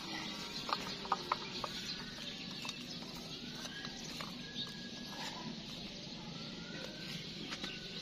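Charcoal lumps clinking and scraping as a wooden stick shoves them against a steel tumbler in an iron karahi, with a few sharp knocks about a second in. Faint short chirps are heard in the background.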